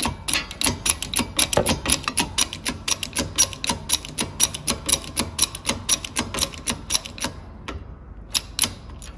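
Rapid, even run of sharp metallic clicks, several a second, from a rod bender's mechanism as it is worked to bend a steel rod. The clicking stops about seven seconds in, leaving a few scattered clicks.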